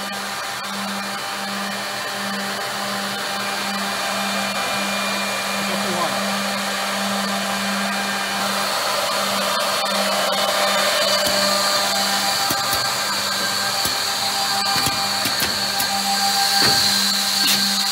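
Brandt Ambition 1650CF edgebanding machine running, with a steady motor hum and a high whine. The machining noise grows louder about halfway through, and scattered clicks come in the second half.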